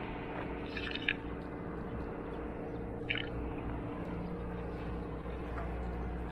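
Steady outdoor background of a low rumble and a constant engine-like hum, with two brief high chirps, about a second in and about three seconds in.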